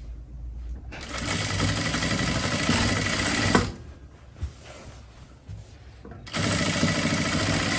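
Sewing machine stitching a trouser side seam in two runs, each a few seconds long, with a pause between them. The first run ends with a click.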